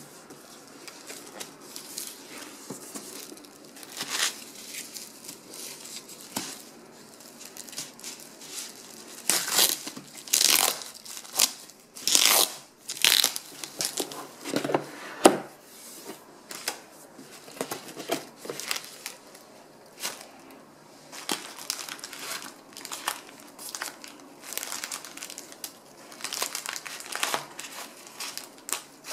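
Hands unpacking a parcel: plastic wrap crinkling, paper and cardboard rustling and being pulled open, with a cluster of loud, sharp ripping strokes around the middle. Near the end, white wrapping paper rustles around a bouquet.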